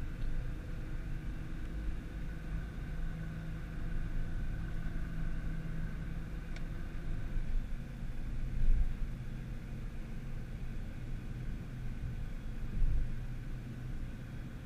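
Nissan GT-R driving, a steady engine and road rumble with two brief low thumps, one a little past halfway and one near the end.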